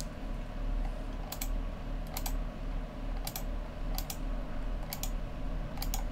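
Computer mouse clicks in quick pairs, about six of them roughly a second apart, as vertices are picked one by one; a steady low hum runs underneath.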